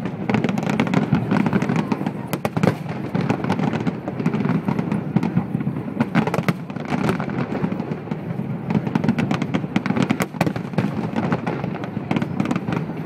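Dense fireworks barrage: many aerial shells bursting in quick succession, a steady rumble of booms with many sharp cracks over it and no pause.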